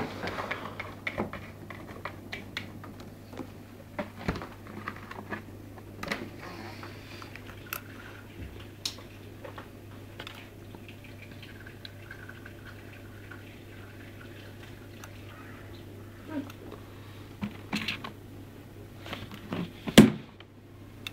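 Irregular light taps, clicks and scrapes of a cat's paws and claws against a plastic food container and the table top, with one sharp plastic knock near the end.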